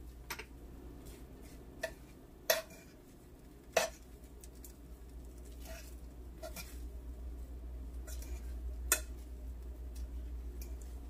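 Kitchen utensils clinking against dishes: about seven sharp, irregularly spaced clinks, each with a short ring, the loudest about two and a half and four seconds in, over a steady low hum.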